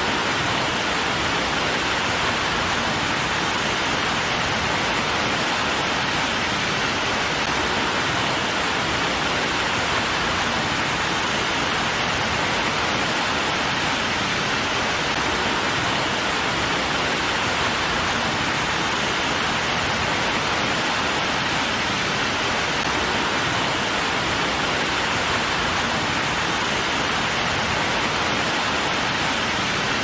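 Water cascading over a waterfall of stepped rock ledges: a steady, unbroken rushing hiss.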